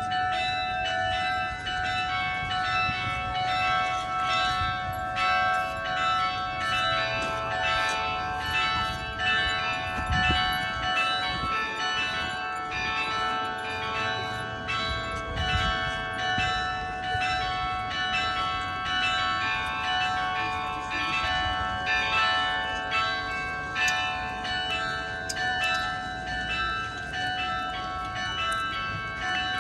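Tikkurila church's bells ringing together (yhteensoitto): several bells of different pitches struck again and again, their tones overlapping into one continuous peal at a steady level.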